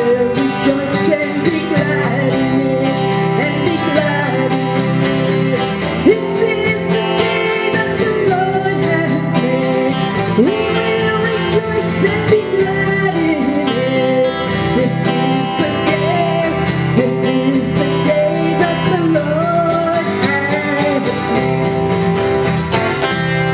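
A woman sings a worship song into a microphone over strummed acoustic guitar, with electric guitars playing along.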